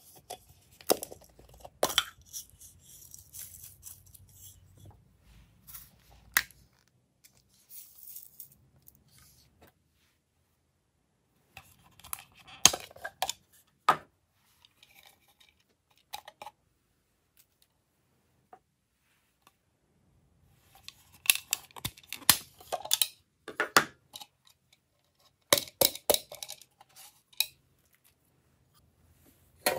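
Hard plastic containers being handled and tapped: scattered sharp clicks and knocks in short clusters, with quiet gaps between.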